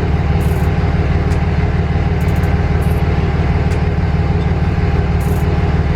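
Diesel pickup engine idling steadily with an even, rapid low rumble, a few faint light clicks over it.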